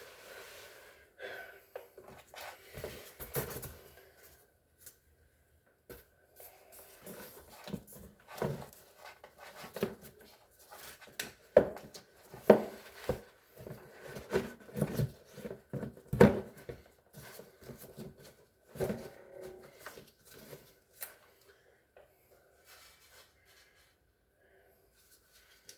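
Irregular knocks, clicks and rattles of refrigerator parts being handled, with several sharper knocks in the middle.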